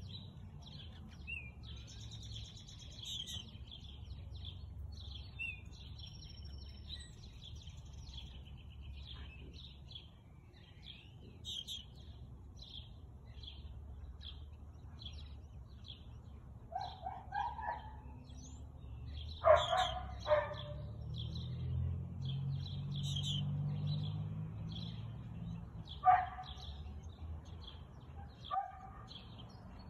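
A husky barking now and then: a couple of short barks about 17 seconds in, two loud barks near 20 seconds, another loud one near 26 seconds and a last one shortly after. Birds chirp repeatedly in the background throughout.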